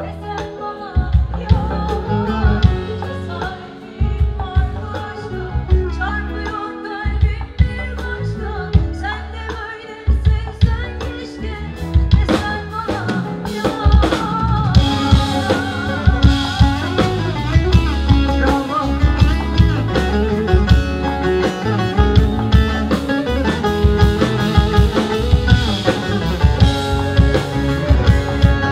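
Live pop band playing, with a woman singing a Turkish pop song over a drum kit and acoustic guitar. The drums and cymbals grow fuller and brighter about halfway through.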